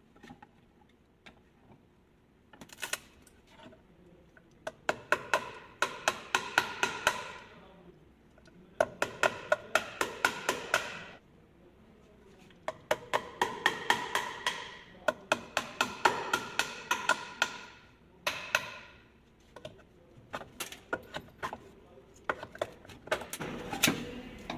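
Hammer blows in three long runs of about three strikes a second, each with a short ringing tone, separated by short pauses and a few single knocks.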